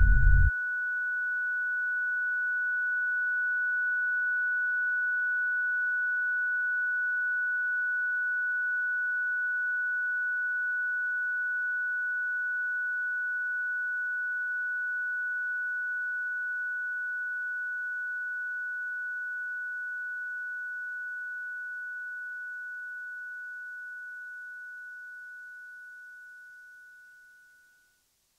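Horror soundtrack: a loud burst of music cuts off suddenly about half a second in, leaving a single steady high-pitched electronic tone that slowly fades away and stops just before the end.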